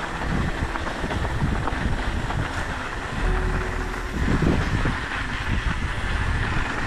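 Mountain bike riding down an eroded dirt trail: tyres crunching and the bike rattling over rough ground, with wind rushing over the microphone.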